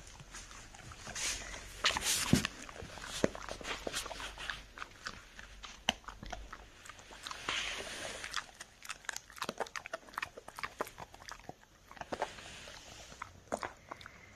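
Standard Labradoodle chewing a dog chew: irregular sharp crunches and clicks of teeth on the chew, the loudest about two seconds in.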